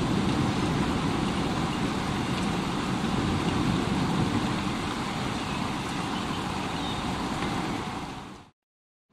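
Steady heavy rain: a dense hiss over a strong low rumble. It fades out to complete silence shortly before the end and then fades back in, a splice in the looped track.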